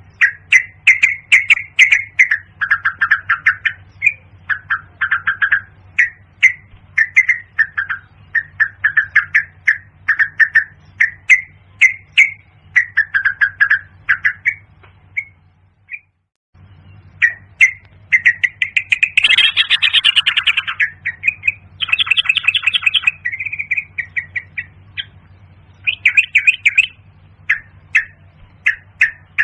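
Yellow-vented bulbul calls: quick, bubbly chirping phrases repeated over and over, a lure call for the bird, over a steady low hum. The calls and hum break off for about a second halfway through, then resume.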